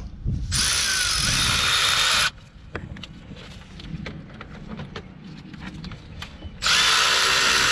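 Milwaukee cordless extended-reach ratchet running as it spins out a brake caliper bolt. It runs in two spells: one of about two seconds near the start, and another starting near the end. Small handling clicks come between them.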